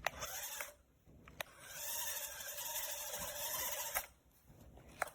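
Small electric drive motors and gears of a Force1 Tornado RC stunt car whirring as the wheels are driven from the remote: a short whir, a click, then a steadier whir lasting about two and a half seconds.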